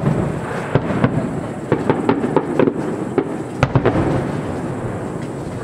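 Aerial fireworks shells bursting: many sharp bangs in irregular succession over a continuous low rumble.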